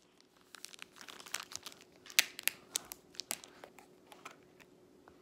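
Irregular crackling and rustling handling noise right at a phone's microphone: a quick string of sharp ticks and crinkles, loudest about two seconds in, thinning out towards the end.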